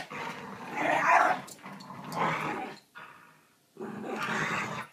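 A Shiba Inu and a Labrador growling in play while tugging on a rope toy, in three bouts with a short pause about three seconds in.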